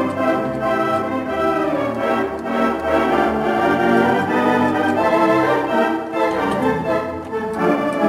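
Barton theatre pipe organ being played: full, sustained chords that change from one to the next.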